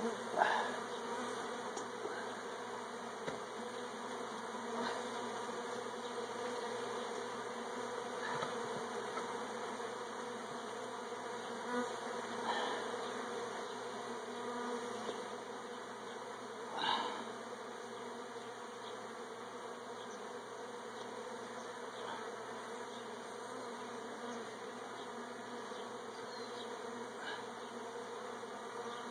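Swarm of honey bees buzzing around an open hive: a steady, dense hum. A few brief bumps break through it, the loudest about 17 seconds in.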